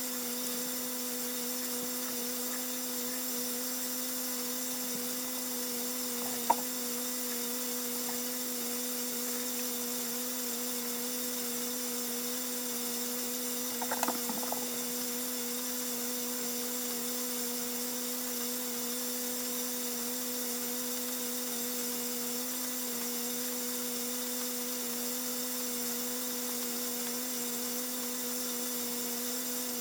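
A steady, even hum over a faint hiss, with a single click about six and a half seconds in and a brief clatter of knocks around fourteen seconds.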